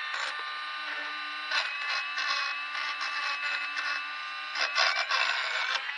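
Electric drill running steadily with a 5/16 in. bit, enlarging a worn linkage hole in the tractor's steel bracket. The bit grates louder as it bites, about one and a half seconds in and again near the end.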